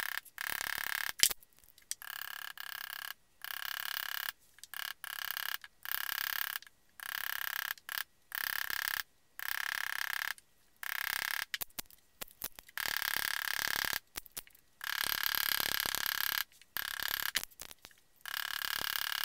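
Bursts of rapid mallet strikes on a steel leather background stamp, the leather laid on a granite slab. Each burst lasts half a second to a second and a half with short pauses between, and the stamp gives a steady metallic ring.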